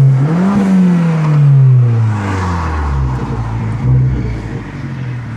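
Fiat 500 Abarth's turbocharged four-cylinder engine heard from inside the cabin, revving up briefly about half a second in, then falling in pitch as the revs drop and settling into a steady low drone.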